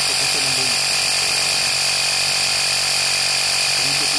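Workzone Titanium 20V cordless air compressor (tyre inflator) running steadily while it pumps up a car tyre, its motor and piston pump giving an even, unbroken hum and whine.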